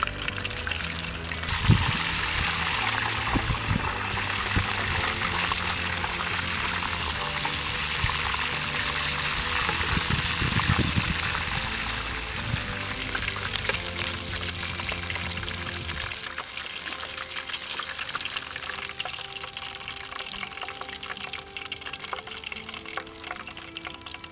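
Hot oil sizzling steadily around a whole chicken deep-frying in a pot, with background music over it; the sizzle grows fainter near the end.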